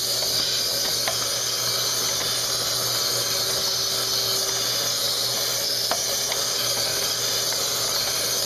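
Vacuum cleaner running steadily, its hose nozzle sucking dust, debris and dead bugs out of a car's air filter box. It makes a steady hiss with a low hum, and a couple of faint ticks of debris go up the hose.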